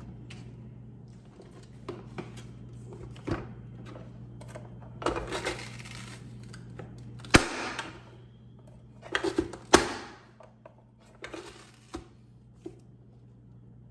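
Kitchen handling sounds: scattered clicks, knocks and short scrapes of utensils and containers over a steady low hum. The sharpest knock comes about seven seconds in, and a cluster of knocks follows around nine to ten seconds.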